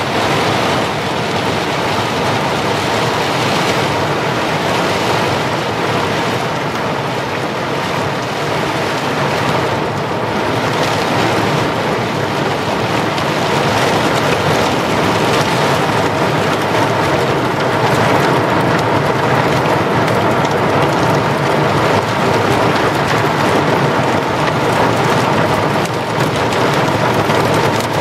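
Torrential rain pouring down in a steady, dense rush, with water streaming over the window glass.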